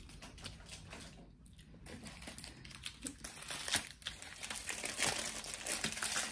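Paper napkin being handled and crumpled in the hands: a dry crinkling that grows louder in the second half.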